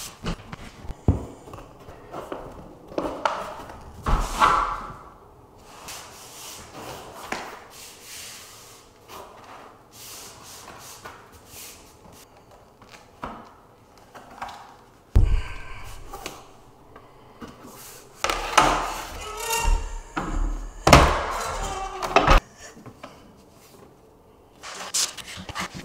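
Vinyl flooring planks being handled and fitted by hand: scattered knocks and thumps as pieces are set down and pressed onto the glued underlayment. There is a longer stretch of scraping and rubbing about two-thirds of the way in.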